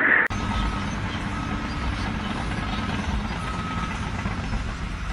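An engine running steadily with a low rumble, like a heavy machine idling.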